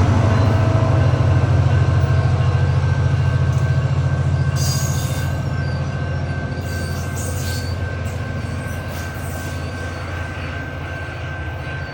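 SunRail diesel-hauled commuter train pulling away, its engine rumble and rolling wheels slowly fading as it departs. A thin high squeal runs under it, with brief sharper squeals near the middle.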